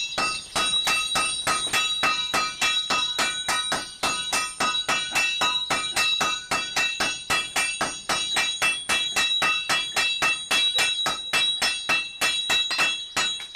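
Blacksmith's hand hammer and a striker's sledgehammer beating red-hot iron on an anvil in quick succession, about four blows a second. Each blow rings with the anvil's steady high tones.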